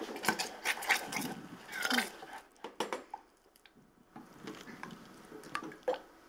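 Spatula stirring and knocking against a stainless steel saucepan of clear nappage glaze being heated. There is a quick run of clicks and scrapes in the first couple of seconds, then a few scattered clicks.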